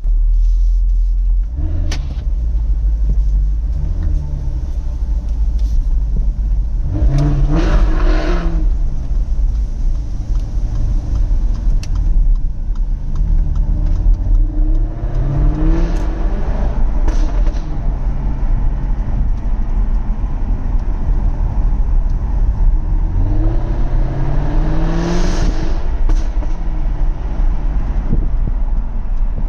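Jaguar F-Type R's supercharged V8 idling through its exhaust and revved three times: a short blip about seven seconds in, then two longer revs climbing about thirteen and twenty-three seconds in, each falling back to idle. Sharp exhaust crackles and pops are scattered through, notably just after the second rev.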